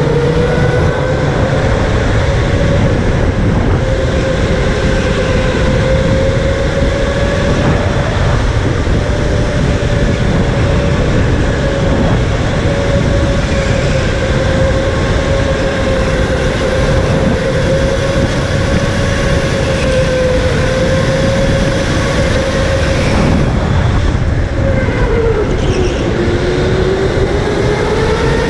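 Electric go-kart motor whining with speed over a heavy low rumble. About 25 seconds in, the whine's pitch dips as the kart eases off, then rises again as it picks up speed.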